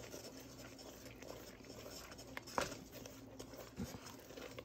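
Wooden spoon stirring a thick, simmering praline mixture in a stainless steel pot, faint scraping over a low steady hum. There is one sharp tap about halfway through, likely the spoon knocking the pot.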